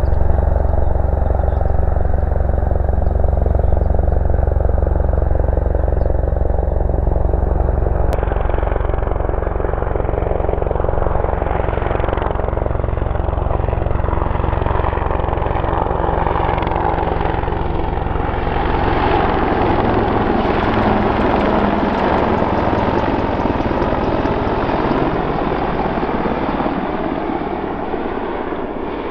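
British Army AH-64 Apache attack helicopter in flight, its twin turboshaft engines running under a steady, repeating rotor beat. The sound changes abruptly about eight seconds in, and there are falling sweeps in pitch as it passes.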